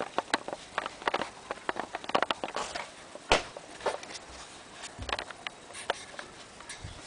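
Handling noise from a handheld camera being moved about: scattered clicks and rustles, with a few dull thumps about five seconds in and near the end.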